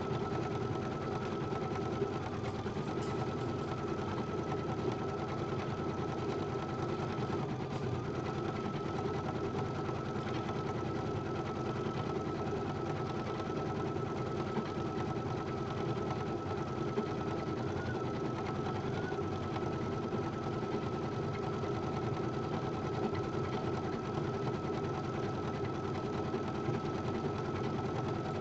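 Brother BP1530L embroidery machine stitching out a design, running steadily, with a thin high whine that dips briefly a few times.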